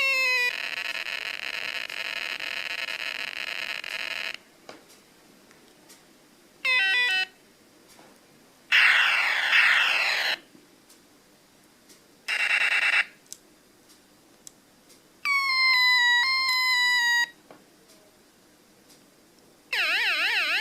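The Executor, a 1989 electronic sound-effects toy, plays a string of synthetic effects with short pauses between them. A falling sweep gives way to a steady buzz of about four seconds, followed by quick falling chirps, a noisy sweeping zap, a pulsing tone, stepped falling tones, and a warbling siren-like tone near the end.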